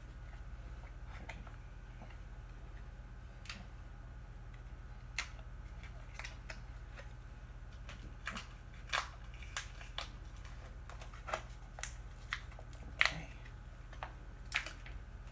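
Scattered small clicks and taps of plastic as a smoke alarm is handled to get its batteries out, sparse at first and more frequent in the second half, over a low steady hum.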